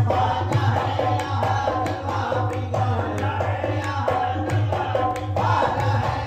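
Qawwali music: a harmonium playing a stepping melody of held notes over a hand drum and rhythmic hand-clapping, with voices singing.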